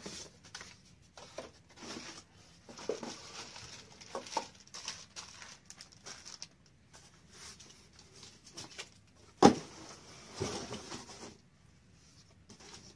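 Cardboard box and packaging being handled while a chainsaw is unboxed: irregular rustling, scraping and crinkling of cardboard flaps and plastic. A single sharp knock about nine and a half seconds in is the loudest sound, followed by a burst of rustling.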